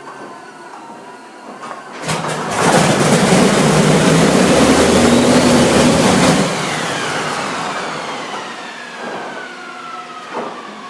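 Wright R-3350 18-cylinder twin-row radial aircraft engine firing into a loud burst of running for about four seconds, then dying and winding down with a falling whine. It catches on enough fuel to fire but not enough to keep running: a start attempt that almost succeeds.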